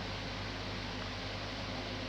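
Steady background hiss with a low, even hum: room tone with no distinct event.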